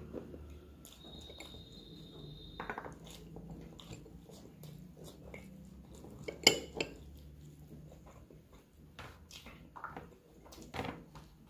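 Eating by hand: fingers squelching through rice and curry on a plate, with scattered clicks and taps of fingers and food against the plate and glass bowls. One sharp clink of a glass bowl about six and a half seconds in is the loudest sound.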